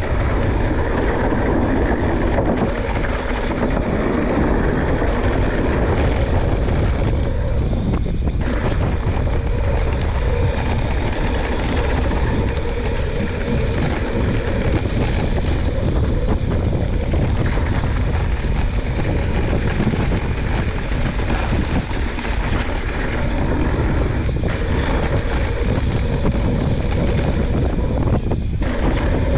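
Steady loud wind rush over an action-camera microphone, mixed with the rumble of a YT Jeffsy 29 mountain bike's knobby 29-inch tyres rolling fast over a dirt trail during a descent.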